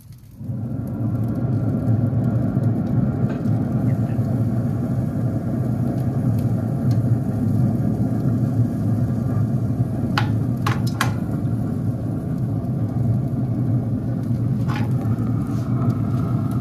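A steady low machine rumble starts suddenly about half a second in and holds. Metal tongs click a few times against the grill grate past the middle.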